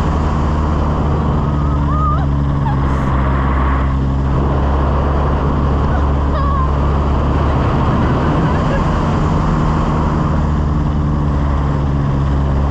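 Small aircraft's propeller engine running steadily at a constant speed in flight, with a constant rush of air noise.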